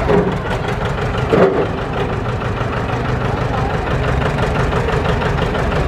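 John Deere two-cylinder tractor engine running slowly at low throttle, with an even pulse, as the tractor creeps up a seesaw balance beam. A short louder sound comes about a second and a half in.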